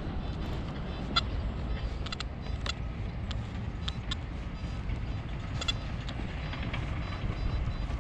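Steady low rumble, like wind on the microphone or distant traffic, with scattered faint short ticks and chirps.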